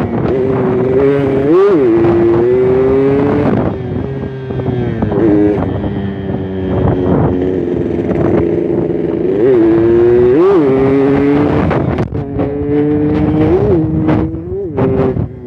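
Yamaha RX-King two-stroke motorcycle engine running under way, built for a raspy 'ngorok' note while staying light to ride. Its steady note jumps up in pitch and drops back briefly several times, with a rougher, quieter stretch in the middle.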